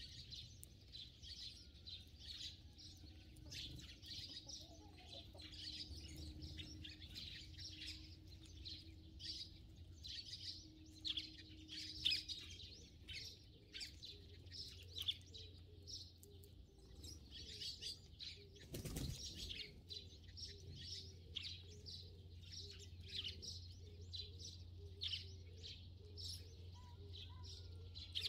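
Sparrows chirping continuously, many short high chirps overlapping in quick succession. A single brief rush of noise cuts across them about two-thirds of the way in, over a faint steady low hum.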